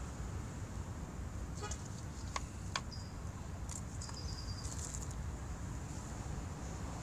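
A few sharp plastic clicks and a short rattle about two to three seconds in, from a used cabin air filter being pulled out of its black plastic frame, over a steady low outdoor rumble. Two short high tones follow near the middle.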